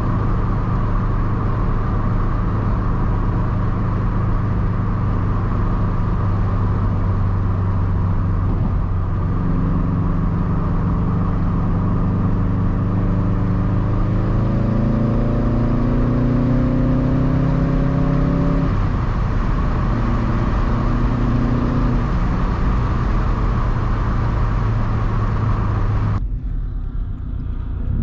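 A 2013 Subaru WRX STI's turbocharged flat-four running through a Tomei Expreme Ti titanium turboback exhaust while driving. It drones steadily at first, rises in pitch as it pulls through a gear from about a third of the way in, and drops at a gear change about two-thirds in. Near the end it suddenly turns quieter and lower.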